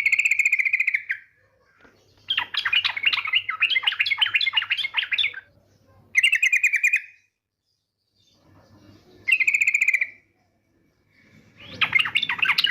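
Yellow-vented bulbul (trucukan), given as a female, calling. Short rapid buzzy trills, three of them, alternate with two longer chattering phrases, with silent pauses between.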